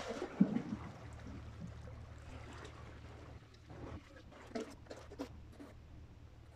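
Small sea waves lapping and trickling against the rocks, with a steady low wind rumble on the microphone. A knock about half a second in and a few light clicks a little past the middle.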